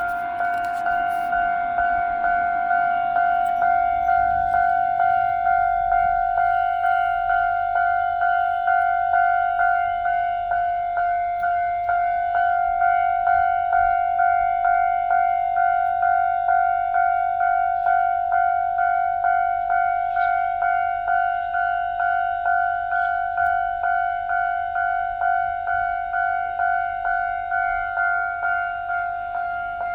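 Japanese railroad crossing alarm ringing continuously, a steady repeating electronic ding on one pitch, about one strike a second or a little faster. A low rumble fades out over the first few seconds.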